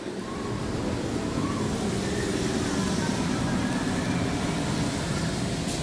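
City bus passing close by in street traffic: its engine and tyre noise swells about a second in and eases off near the end.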